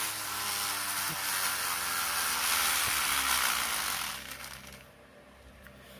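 Infinity Nado spinning top whirring as it spins on its rip-cord launcher just after the pull, the pitch falling steadily as it slows. The whir dies away about four seconds in.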